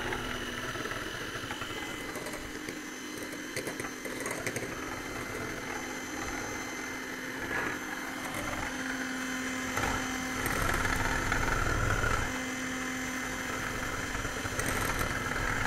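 Electric hand mixer running steadily, its beaters whipping cream in a glass bowl.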